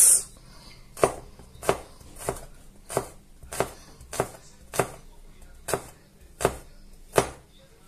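Chef's knife chopping a garlic clove on a plastic cutting board: a steady series of sharp knocks, about one every two-thirds of a second.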